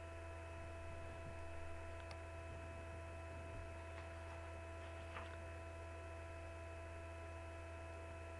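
Faint, steady electrical hum: a low drone with several steady higher tones over it, and a few faint clicks.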